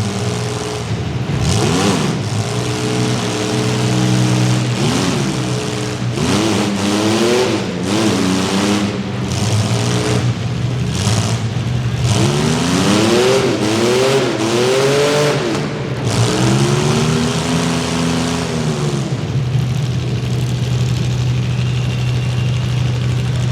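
Demolition derby compact cars' engines revving up and down over a steady low engine drone, with a string of sharp bangs in the middle.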